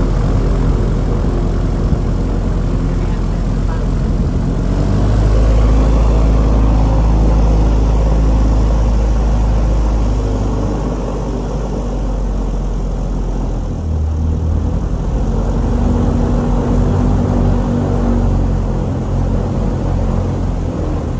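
Tour boat's engine running steadily under way, with a low hum and rushing noise; it grows louder a few seconds in, then eases back.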